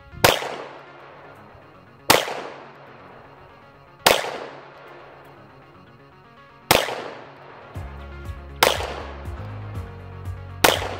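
CZ Tactical Sports Orange pistol fired six times in slow, deliberate single shots about two seconds apart, each shot trailing off briefly. Background music plays throughout, and a steady beat comes in near the end.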